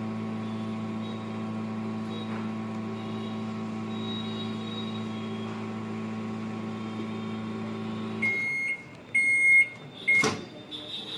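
Microwave oven running with a steady electrical hum that stops about eight seconds in at the end of the cycle. Then come three high beeps, the last one cut short, and a sharp click.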